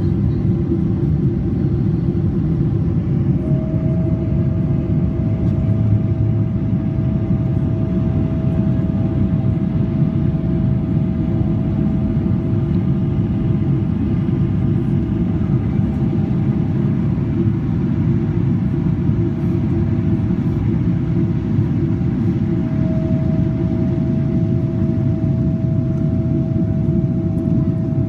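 Jet airliner cabin noise during the climb after takeoff: a steady low rumble of the engines and rushing air. A steady high whine comes in a few seconds in, drops out past the middle and returns near the end.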